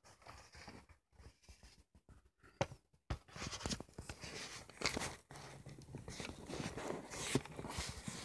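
Handling noise close to the microphone as a cardboard model box is held and moved: rustling and scraping, with two sharp knocks about two and a half and three seconds in, after which the rustling gets busier.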